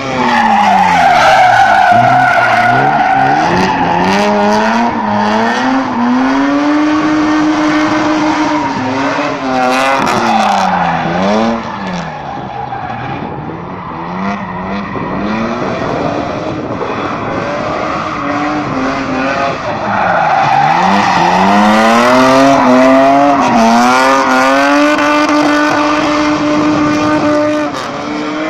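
Drift car sliding through the course, its engine revs repeatedly climbing, holding and falling with the throttle, with tyres squealing. The revs drop sharply twice, about ten seconds in and again about twenty seconds in.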